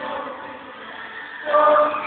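A live acoustic band: a singer holds notes over violin and guitars, with a louder sung note about one and a half seconds in.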